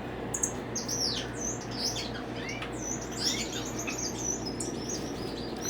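A room full of small caged pet birds chirping and calling over one another: many short high chirps and quick sweeping calls, over a steady low hum.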